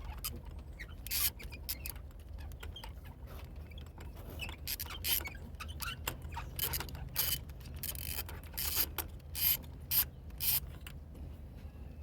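Metal hand tools at work on an engine: irregular clicks and short rasping strokes, like a socket ratchet being worked in spells, with the loudest strokes in a cluster near the end.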